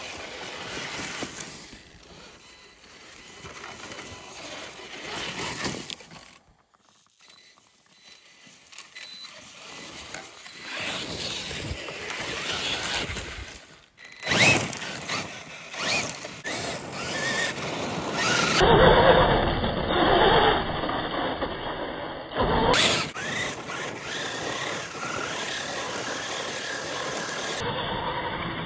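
Losi LMT electric RC monster truck driving off-road: its brushless motor and drivetrain whine as the throttle comes on and off, with tyres churning dirt and gravel. The sound changes abruptly several times and is loudest about two-thirds of the way in.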